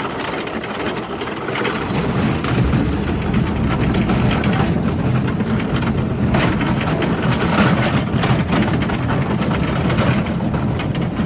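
Scrapyard carts being pushed over rough ground, their wheels and frames rumbling and rattling; the rattle picks up about two seconds in and keeps on.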